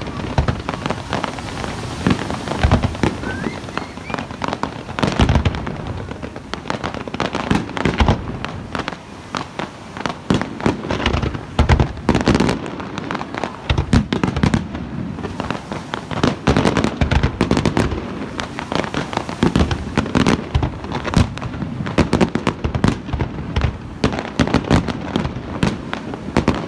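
Fireworks display: aerial shells bursting one after another in a dense, unbroken run of bangs.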